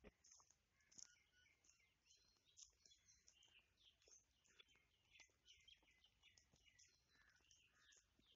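Faint birdsong: many short, high chirps and calls from several small birds, overlapping irregularly.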